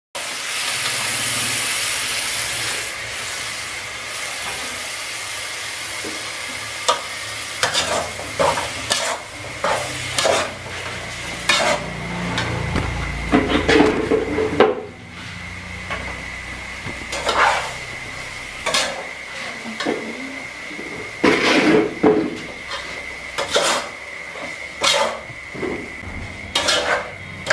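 Snails in their shells frying in a steel pot, sizzling, while a metal spatula stirs and scrapes them against the pot with short, irregular clattering strokes. The sizzle is loudest at the start.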